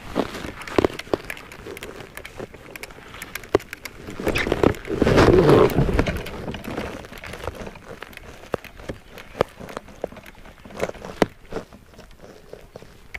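Handling noise from a fishing rod and reel on a kayak while a topwater lure is cast and retrieved: scattered clicks and taps, a louder rustling burst about five seconds in, then a run of small ticks.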